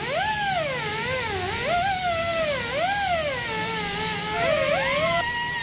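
Small handheld cut-off wheel cutting a metal ring strip, a whine whose pitch keeps swooping up and down, with a hiss from the disc on the metal.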